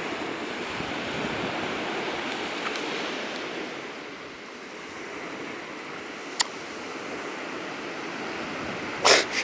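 Surf washing onto a sandy beach, a steady hiss of waves that eases slightly midway, with a single faint click about six seconds in and a short louder burst of noise near the end.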